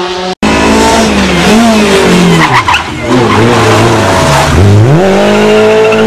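Renault Clio rally car's engine revving up and down through a corner, with a short tyre squeal about two and a half seconds in. Nearly five seconds in, the revs fall low, then climb sharply and hold high as the car accelerates away.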